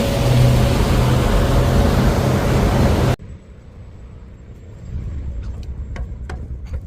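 A ferry's engine hums steadily under loud rushing wind and water noise. About three seconds in it cuts off abruptly to a much quieter background with a few sharp knocks.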